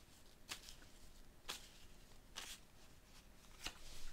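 Tarot cards being shuffled by hand, a short papery rustle about once a second.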